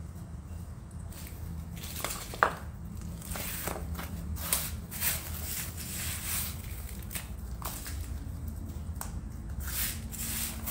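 Hands scooping and pressing loose potting media into a plastic pot around a sancang bonsai's roots: scattered crunching and rustling, with one sharp click about two and a half seconds in, over a low steady hum.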